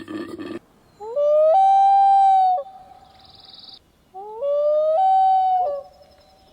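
Two howl-like animal calls, each sliding up in pitch and then holding a clear steady note for about a second. A rough, noisy sound from the previous clip cuts off just after the start.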